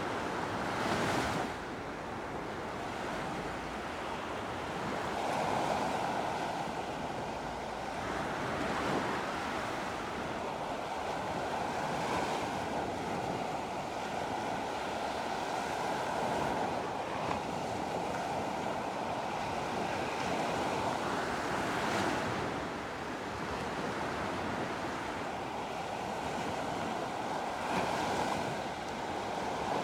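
Sea waves breaking and washing onto a beach: a continuous rush, with a surge every few seconds as a wave breaks.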